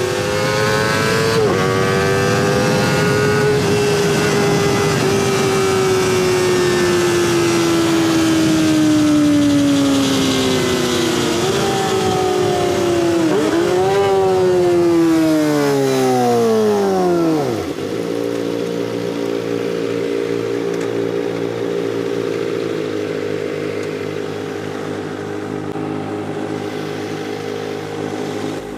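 Kawasaki ZX-25R inline-four through a DX Generation Sphere aftermarket exhaust: running at high revs with a shift about a second and a half in, then the revs fall away with two short blips of throttle on downshifts. It settles into a steady idle about halfway through, as the bike comes to a stop.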